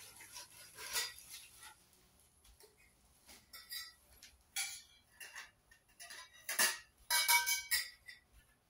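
Metal tubes of a clothes-rack kit clinking and rattling against each other as they are handled and laid down, with plastic wrapping rustling. The clatter is loudest about seven seconds in, where the clinks ring briefly.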